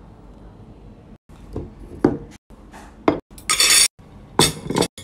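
White ceramic plate and metal cutlery being handled and set down: a series of sharp clinks and knocks starting about a second in, with a longer rattling clatter around the middle.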